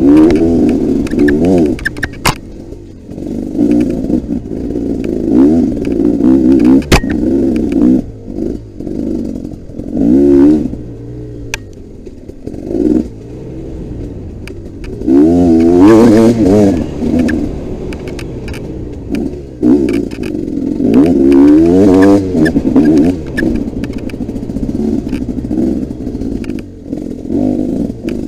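Dirt bike engine ridden hard on a trail, revving up and dropping back again and again as the throttle is opened and shut, with a few sharp knocks from the bike along the way.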